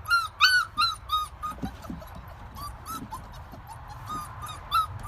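A dog whimpering in a series of short high-pitched yips: four loud ones quickly in the first second or so, then softer ones, with one louder yip near the end.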